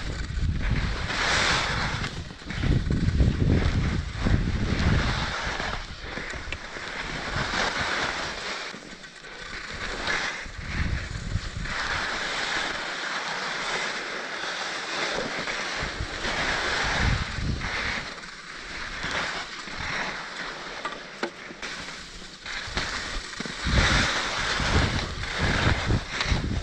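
Skis hissing and scraping over packed, tracked snow on a downhill run, swelling and fading every few seconds, with wind buffeting the helmet-mounted microphone in low gusts.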